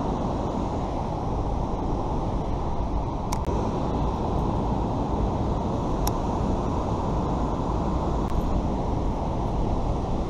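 Steady rushing of river water pouring over a low dam spillway and running over the rocks, with a few faint clicks.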